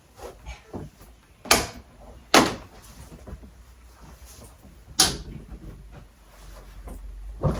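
A few sharp knocks: loud ones about one and a half, two and a half and five seconds in, another near the end, and fainter clicks between them.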